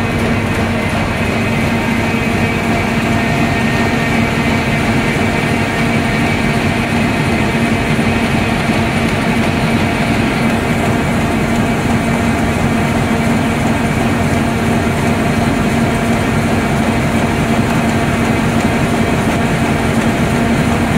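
Corrugated-board rotary die-cutting machine running at production speed, printing and cutting pizza-box blanks: a steady mechanical hum over a dense, continuous clatter.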